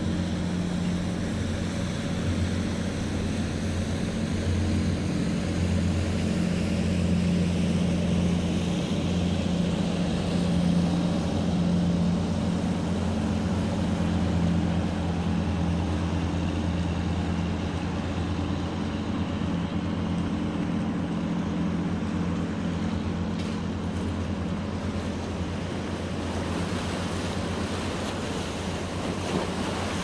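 Engine of a small fishing boat running steadily as it crosses the harbour, a low hum that swells and then eases off, over the wash of moving water.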